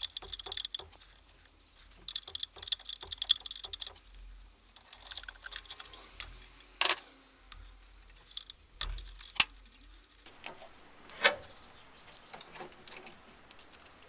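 Small metallic clicks and clinks of hand tools on the fittings of a VW 1.6 diesel engine's fuel injection pump, in quick runs of ticking with a few sharper single clicks in the second half.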